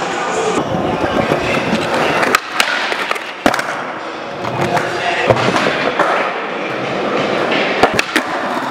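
Skateboard wheels rolling on smooth concrete, with a few sharp clacks of the board striking the ground, the loudest about three and a half seconds in.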